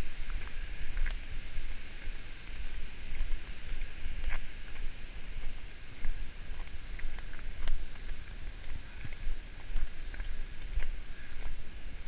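Wind buffeting the microphone in uneven gusts, with scattered short crunches of footsteps on icy snow.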